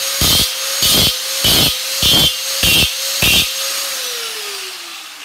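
Angle grinder running with a steady whine as its disc is pressed against a heater's aluminium back shell in six short grinding touches, about one every 0.6 s. A little before 4 s in it is switched off and its whine falls as it winds down. This is a spark test, and the shell does not spark, which shows it is aluminium, not stainless steel.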